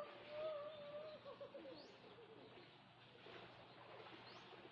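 A young child's long, drawn-out wordless call that rises, holds one pitch, wavers and fades about a second and a half in, followed by faint hiss.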